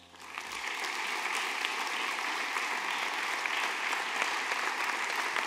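Applause from a sparse, seated audience, rising over about the first second and then holding steady.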